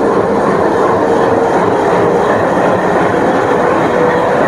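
Passenger train running on the rails: a steady, loud rumble and rattle of wheels and coach, heard from on board.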